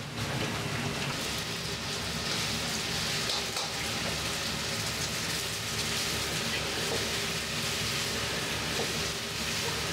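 Fried rice sizzling in a wok: a steady hiss with a low hum underneath.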